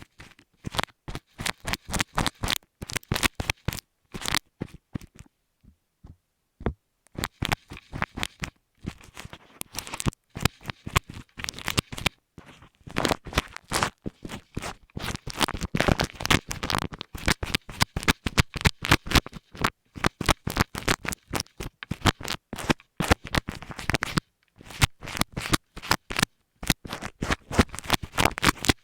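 Rapid, irregular close-up scratching and crackling worked directly on an earphone microphone, in clusters broken by brief pauses.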